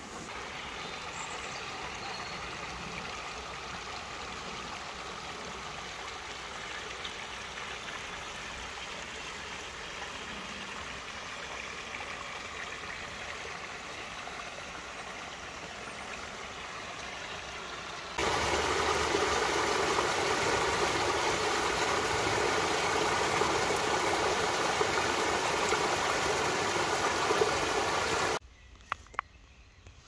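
A small woodland stream trickling and gurgling steadily. About 18 s in it cuts abruptly to a louder, closer rush of running water, which stops suddenly near the end, leaving a quiet background with a few sharp clicks.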